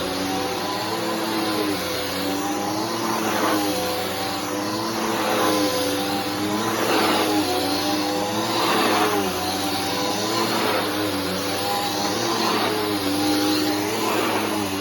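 Bissell Powerforce Helix 3313 upright vacuum cleaner running while vacuuming. Its motor pitch dips and rises, and the rush of air swells, with each push-and-pull stroke, about every two seconds.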